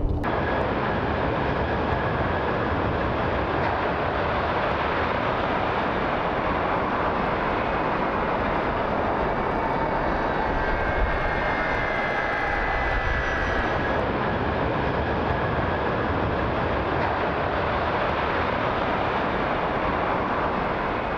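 Aircraft engine noise, a steady rushing sound at an even level throughout, with a faint higher whine for a few seconds in the middle.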